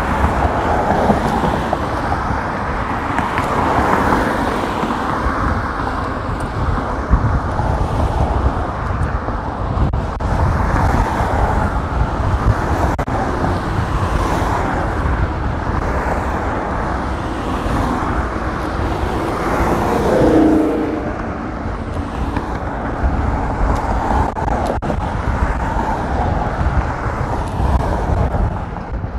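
City street traffic heard from a moving bicycle: cars going by and tyre noise over a steady low wind rumble on the action camera's microphone. The noise swells briefly about two-thirds of the way through.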